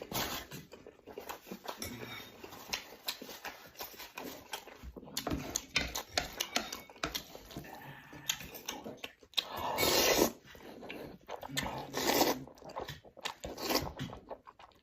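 A person eating instant noodles close to the microphone: a run of small wet mouth clicks from chewing, with louder slurps of noodles about ten and twelve seconds in and again near the end.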